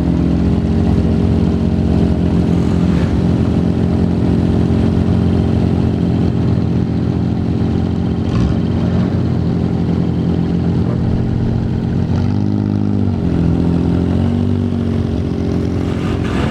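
A vehicle engine running steadily close by, its pitch dipping and rising again twice near the end.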